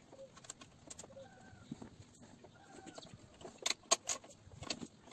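Chickens clucking faintly in the background, a few short calls in the first three seconds. From about three and a half seconds in comes a run of sharp clicks and clinks, the loudest near four seconds.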